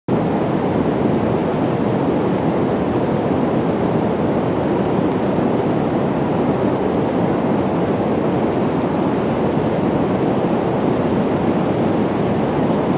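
Steady rushing noise of wind and ocean surf on an open beach, unchanging throughout.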